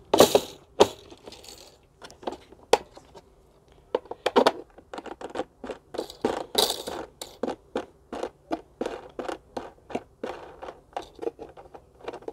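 Clicks, knocks and scrapes of plastic and metal parts being handled as a roller spindle is fitted into the housing of a Parkside PLV 1500 B1 electric scarifier/aerator. A few sharp knocks at first, then a long run of closely spaced small clicks.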